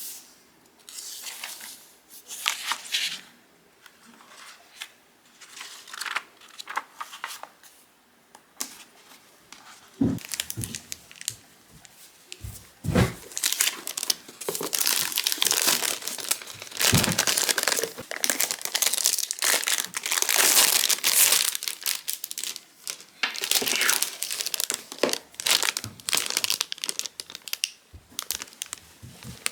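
Packaging crinkling and tearing as it is handled and pulled open, sparse at first and then busy and continuous through the second half, with a few soft thumps.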